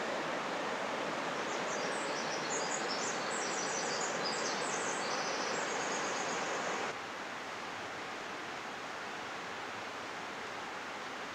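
Steady rush of the North Fork Quinault River below, with a small bird singing rapid, high chirping phrases over it for a few seconds. The river sound drops a little quieter about seven seconds in.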